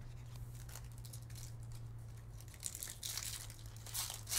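Foil wrapper of a Topps Chrome Formula 1 hobby pack crinkling and tearing as it is ripped open by hand, in short crackly bursts starting about two and a half seconds in and loudest near the end, over a low steady hum.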